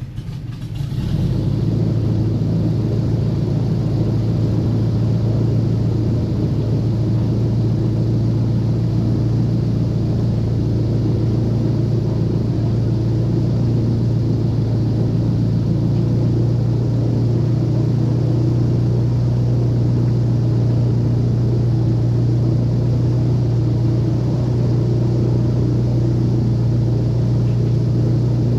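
Airboat engine and air propeller running with a steady low drone, building up about a second in.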